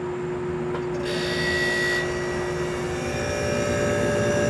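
A vintage dehumidifier switching on, its fan and reciprocating compressor starting up about a second in and settling into a steady hum with a whine in it. The owner thinks the compressor may be a Tecumseh AH-series unit.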